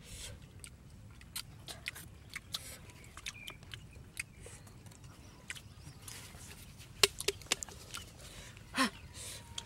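People eating rice with their fingers from a clay pot: scattered small clicks and smacks of chewing and handling the food, with a quick cluster of sharp clicks about seven seconds in and a short falling sound near the end.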